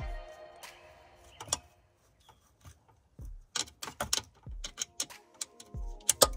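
Hand tools and small metal parts being handled on a car: a run of irregular, sharp metallic clicks and clinks, thickening in the second half, with the loudest just before the end.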